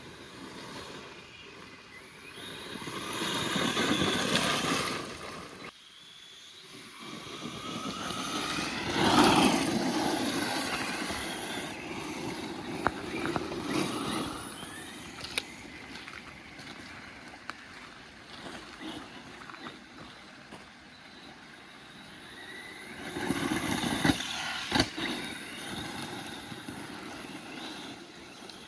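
Absima AT3.4 brushless RC truggy being driven on a 2-cell battery, its brushless motor whining up and down in pitch as it speeds up, slows and passes close three times. A few sharp knocks come near the end. The surface gives the tyres too little grip, so the truggy loses traction under acceleration.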